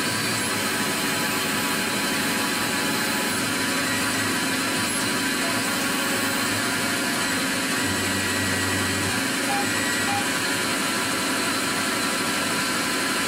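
Tormach 15L Slant Pro CNC lathe running with a steady whirring hum, its tools moving into position, with a slight shift in the low hum about two thirds of the way through.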